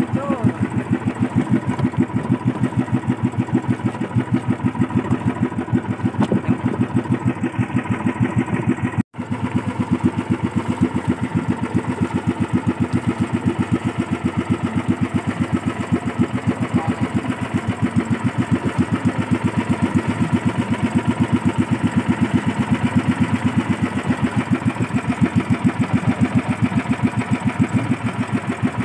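Motorized outrigger boat's engine running steadily with an even, rapid chugging beat, the boat under way while trolling. The sound drops out for an instant about nine seconds in.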